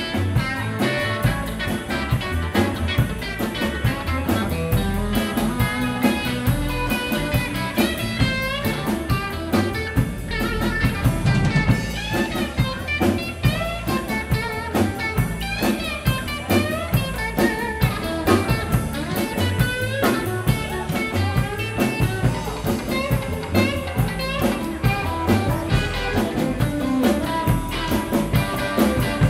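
Live band playing an instrumental passage: Telecaster-style electric guitar over upright bass and a drum kit keeping a steady beat.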